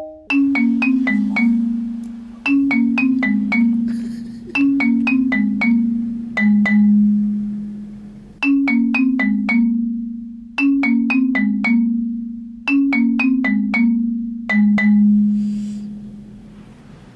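Background music: a light tune of short falling runs of four notes, a new run about every two seconds, fading out near the end.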